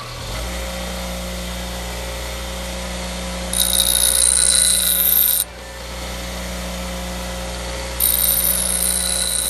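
Electric grinder spinning up and running steadily, twice pressed against steel angle-iron tabs, giving a harsh grinding hiss for about two seconds each time as it takes off their sharp edges.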